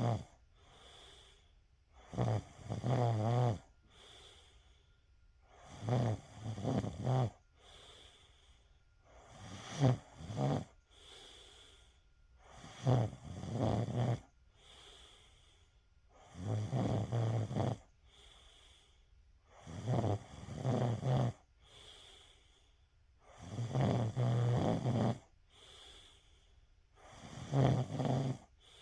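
A woman snoring in deep sleep: a loud, rattling snore about every three and a half seconds, each lasting about a second, with a softer breath between.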